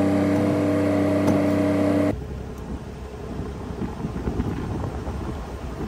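Kubota KX040-4 mini excavator's diesel engine running steadily, heard from inside the cab. About two seconds in the sound cuts off sharply to a quieter, uneven low rumble.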